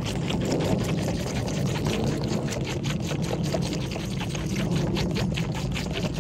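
Baby goats sucking milk from feeding bottles: irregular wet slurping clicks, a few a second, over a steady low rumble.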